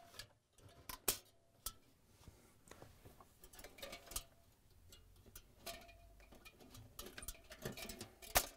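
Faint, scattered light metal clicks and ticks as needle-nose pliers work a retainer clip off the defrost heater on a refrigerator's aluminum-finned evaporator, with one sharper click near the end.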